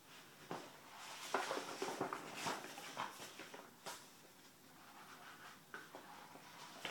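Large folded paper maps being handled and shuffled: irregular paper rustling and sliding with a few light taps, busiest in the first few seconds and lighter after.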